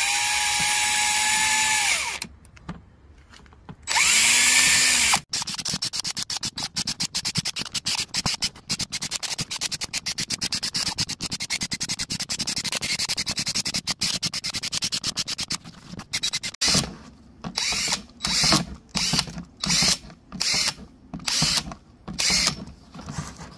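Cordless drill with a 1/16-inch bit drilling small air holes through a plastic tote. A steady motor whine runs for about two seconds, then a short spin-up and wind-down. A long stretch of rapid clicking follows, and near the end a string of short bursts, about two a second, one per hole.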